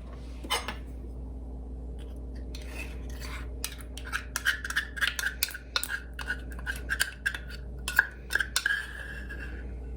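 A utensil scraping and clicking against a dish as thick sugar and corn syrup are stirred together, starting a few seconds in as a quick, uneven run of scrapes and taps.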